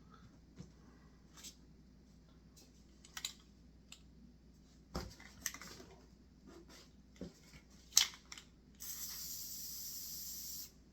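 Light clicks and knocks of handling, the loudest about eight seconds in, then an aerosol can of sand-coloured spray paint hissing steadily for about two seconds near the end as paint is sprayed out.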